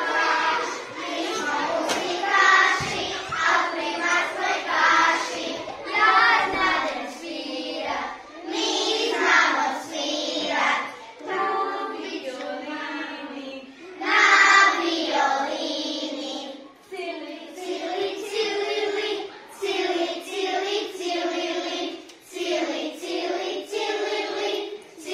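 A class of young children singing a song together in unison, in sung phrases with short breaks between them.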